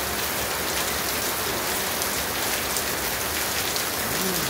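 Heavy rain falling steadily on a tiled roof and the ground around it, an even, unbroken hiss of rain.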